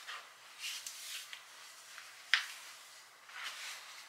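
Soft rustling of clothing and handling noises, with one sharp click about two and a half seconds in.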